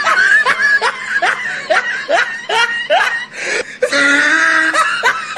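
A person laughing in a long run of short, breathy laughs, about two a second, ending in a longer drawn-out sound near the end.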